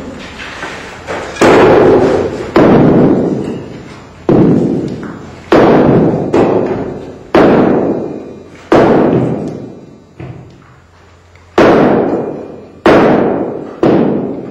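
Heavy metal blows at a foundry furnace: about nine sharp strikes, roughly one every second and a half, one of them weaker, each ringing and dying away over about a second.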